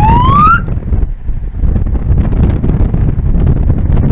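Wind buffeting the microphone, a loud, steady low rumble. A rising pitched tone with overtones ends about half a second in.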